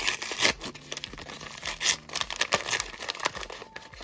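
Wrapping on a blind-box toy crinkling as it is torn open by hand: irregular crackles, with a few louder rustles and rips.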